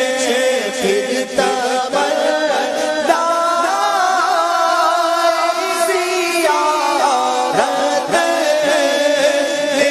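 Devotional singing, likely a naat: a voice chanting in long, wavering melismatic lines that glide and bend in pitch.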